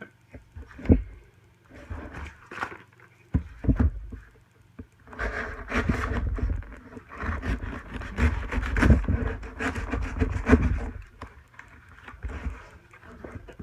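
Hands opening a mailed package: scattered knocks and clicks of handling, then several seconds of rustling and scraping packaging with many small clicks.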